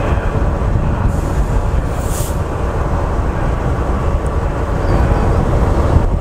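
Diesel-electric locomotive 4120, which the speaker takes to have a Caterpillar engine, idling steadily with a low rumble while standing at the head of its train. A brief hiss comes about two seconds in.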